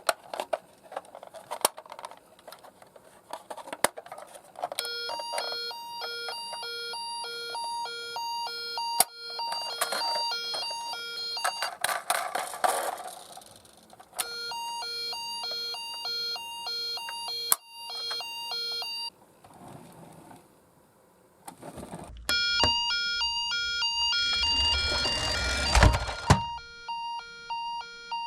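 Toy ambulance's electronic two-tone siren, a low and a high note alternating evenly, sounding in three bursts. Clicks and handling noise come between the bursts.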